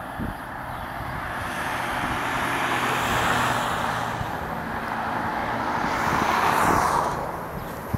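Road traffic passing below: two vehicles go by in turn, tyre and engine noise swelling about three seconds in, then a louder pass-by that drops away sharply just after seven seconds.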